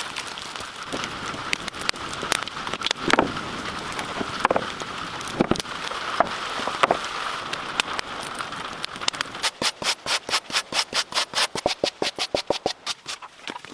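Hand tool scraping and rubbing on wood: irregular scrapes and sharp knocks, then, from about two-thirds of the way in, a fast run of even back-and-forth strokes, several a second, that stops just before the end.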